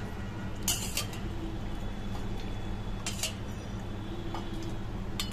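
A steel ladle clinking a few times against steel pans while scooping and pouring stock, over a steady low hum.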